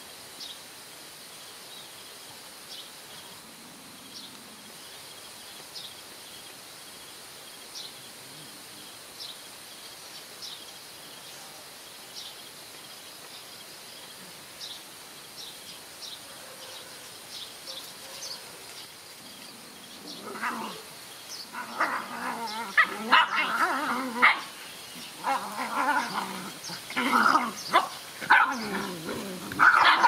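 Puppies growling, barking and yipping as they play-fight, starting about two-thirds of the way in and becoming louder and more frequent. Before that there is only a quiet outdoor background with faint high chirps repeating about once a second.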